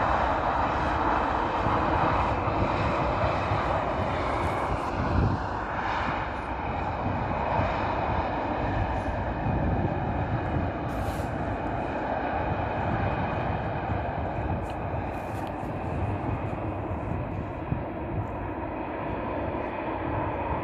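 Jet engines of a WestJet airliner, a steady loud rush with a faint whine on top, easing off slowly in the second half.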